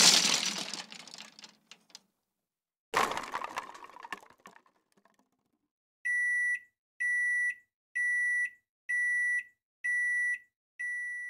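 A loud crash noise marks the drone striking the tree and fades away over the first two seconds, with a second, shorter crash burst about three seconds in. From about six seconds, a high electronic alarm beeps steadily, about once a second, each beep about half a second long.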